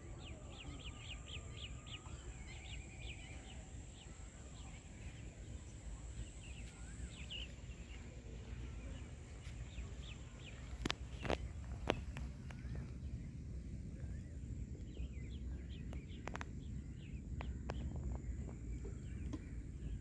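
Small birds chirping in quick short notes, busiest at the start and again near the end, over a steady low rumble and a thin, steady high whine. A few sharp clicks come about halfway through.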